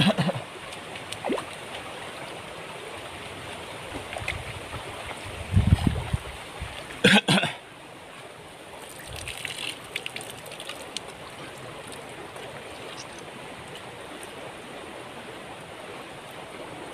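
River water flowing steadily over stones, with a couple of dull thumps about five and a half seconds in and a sharp knock about a second later.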